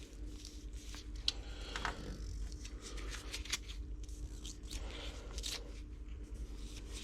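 Light, irregular clicks and scrapes of a cast aluminium cylinder head being handled and turned on a bench, over a steady low hum.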